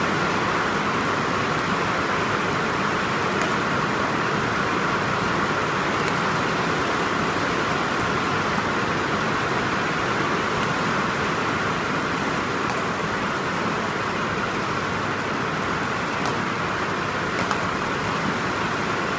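Steady, even background noise filling the hall, with faint sharp clicks now and then, about a dozen in all: badminton rackets striking the shuttlecock during a doubles rally.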